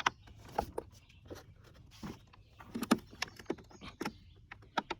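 Irregular clicks and knocks of hard plastic car-interior trim and screws being handled while a center console is reassembled.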